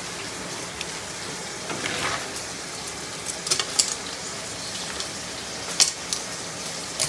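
Steak sizzling in a skillet, a steady frying hiss, with a few light clicks of a spoon scooping cookie dough from a metal mixing bowl.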